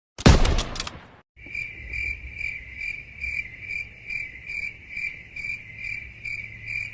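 A sudden loud impact with a deep boom that fades over about a second, then crickets chirping in an even pulse of about two to three chirps a second: the stock 'crickets' gag sound for an awkward silence.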